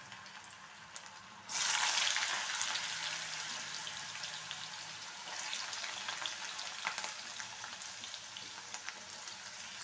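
Raw potato cubes, drained from salted water, frying in hot oil in a black iron kadai. About a second and a half in, the sizzling jumps sharply louder as more potato goes into the oil, then slowly eases off, with scattered crackles.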